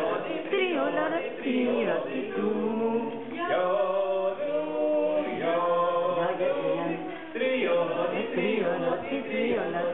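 A small group of voices, adults and children together, singing a song with long held notes and no instruments to be heard.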